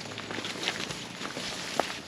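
Footsteps on a dirt path with bamboo leaves and grass rustling and crackling as they are brushed aside, with one sharper click near the end.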